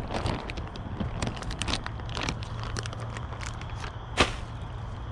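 Plastic zip-top bag crinkling and rustling in the hands as chunks of Jell-O chicken bait are dug out of it, with a sharper click about four seconds in.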